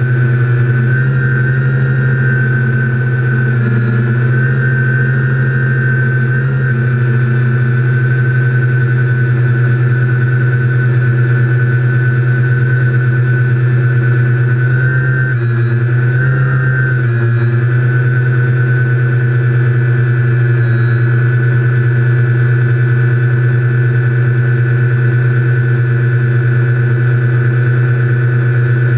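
Motors and propellers of a TBS Discovery quadcopter running in flight, heard through the GoPro on its own frame: a loud, steady drone at an even pitch. The pitch wavers briefly a few times, most clearly about halfway through, as the throttle shifts.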